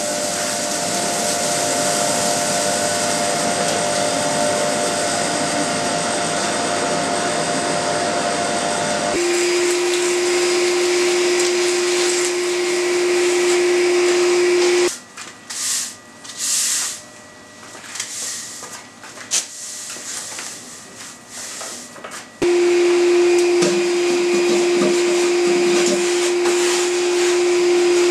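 Workshop vacuum motor running with a loud, steady hum while cleaning up acrylic chips. It drops away for several seconds in the middle, leaving quieter scattered hisses and rattles, and is running again abruptly for the last few seconds.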